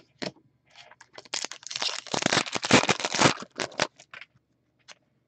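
Hockey trading cards and their shiny packaging rustling and crinkling in the hands as cards are slid and flipped, a dense run of crackling from about one second in to about four seconds in, then a few light clicks.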